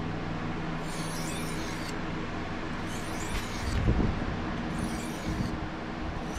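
Fillet knife blade drawn in slow strokes across an oiled Arkansas sharpening stone: three scraping strokes about two seconds apart, each lasting just under a second, working the edge to raise a burr. A steady low hum runs underneath.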